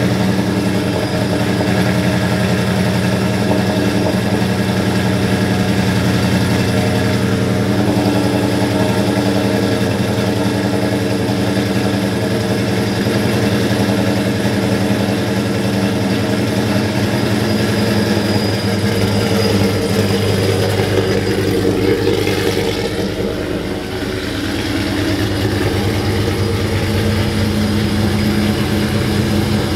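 Ram 1500 R/T's Hemi V8 idling steadily through new Karnage performance mufflers with an X-pipe and 3-inch exhaust. The note holds steady with no revving, and the low rumble gets heavier about two-thirds of the way through.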